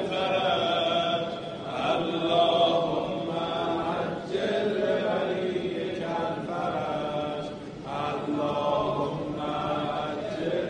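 Religious chanting in long, drawn-out sung phrases, with short breaks between them.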